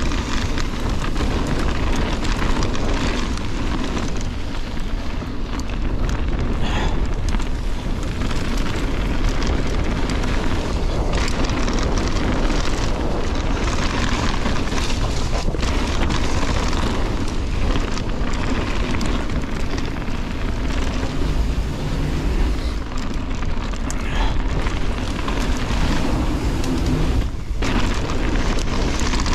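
Mountain bike descending a gravel forest trail at speed: a steady rush of wind buffeting the microphone, over the crunch of tyres on loose stones and the rattle and knocks of the bike over rough ground.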